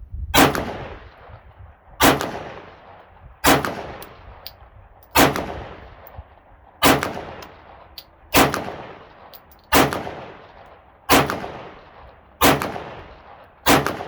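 Glock 17 Gen 5 9mm pistol fired ten times at a slow, even pace, about one shot every one and a half seconds, each shot ringing out and fading. It is shooting steel-cased ammunition and cycles through the string without a malfunction.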